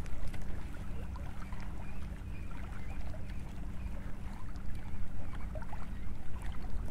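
Steady low rumble of wind and lapping shallow seawater at the shoreline, with faint scattered ticks.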